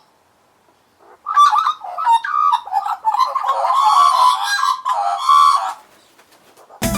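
A pet bird calling in a quick, varied run of chattering squawks and chirps for about four and a half seconds. Music cuts in just before the end.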